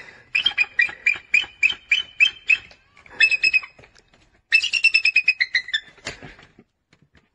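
Bald eagle calling: three runs of rapid, high piping notes, the last ending about six seconds in.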